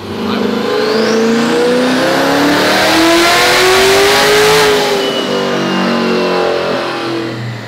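Twin-turbo C8 Corvette V8 making a full-throttle pull on a chassis dyno. The engine note climbs steadily for about four and a half seconds with a rising turbo whine, then falls as the throttle closes and the revs drop, while a high turbo whistle lingers as it winds down.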